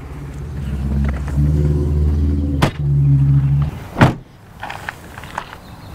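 A vehicle engine hums steadily and low through the first few seconds, then stops; just after that the van's rear door slams shut with one loud bang, followed by a few light knocks.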